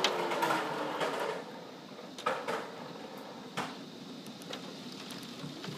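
Storm wind gusting, strongest in the first second and then easing, with a faint whistle falling in pitch. A few sharp knocks follow.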